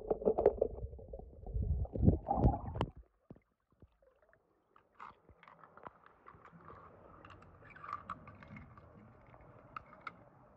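Muffled underwater rumbling and sloshing as a hand pushes a die-cast toy car through pool water, stopping suddenly about three seconds in. After a brief lull, light clicks of die-cast toy cars being set down on a wet stone pool edge over a faint hiss.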